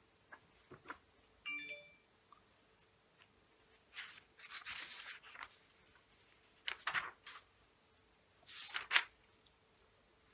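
Quiet small-room tone with a few soft clicks and several short rustles, the loudest near the end.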